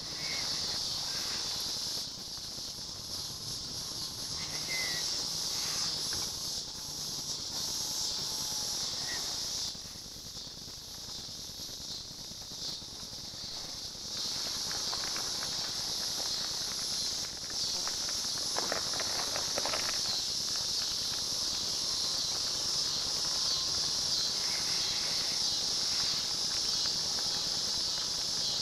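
Steady high-pitched chorus of insects droning on. About 18 to 20 seconds in there is a short burst of rattling clicks.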